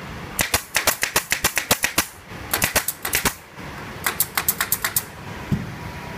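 Pneumatic fastener gun firing in rapid runs of sharp shots, about six a second, three runs with short pauses between them, then a single dull thump near the end.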